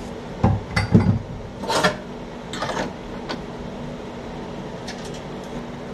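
Handling at a wooden sink cabinet: a few knocks and thumps in the first second, then two brief scraping sounds, over a steady low hum.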